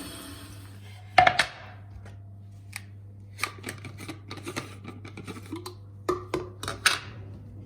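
Household objects being handled and set down: one loud knock about a second in, then an irregular run of lighter clicks and knocks, over a steady low hum.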